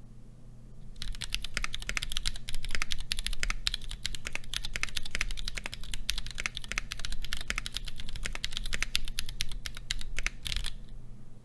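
Typing on a mechanical keyboard fitted with stock Durock POM Sunflower tactile switches in a Portico keyboard: a fast, continuous run of keystroke clacks that starts about a second in and stops near the end. A faint steady low hum sits underneath.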